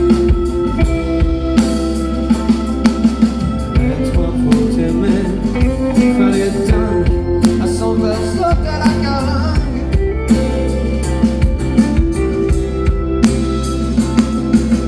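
Live rock band playing an instrumental passage: strummed acoustic guitars and electric guitar over bass and a drum kit keeping a steady beat.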